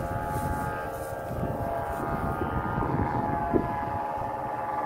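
Steady droning of several kite flutes sounding together at different pitches overhead in strong wind, with wind rumbling on the microphone.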